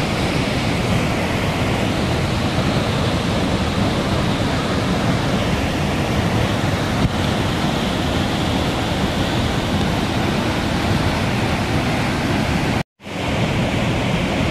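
Muddy floodwater pouring over a rocky cliff as a waterfall: a steady, heavy rush of water. It cuts to silence for a split second near the end.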